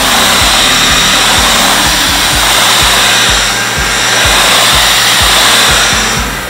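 Stick vacuum cleaner running steadily as it is pushed over a wood floor, a loud even whooshing hiss.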